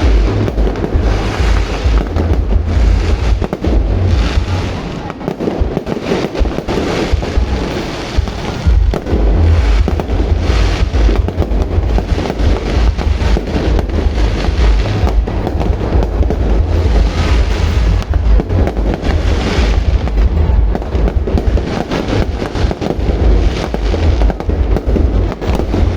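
Fireworks display: a dense, continuous barrage of shell bursts and crackling with a deep rumble underneath.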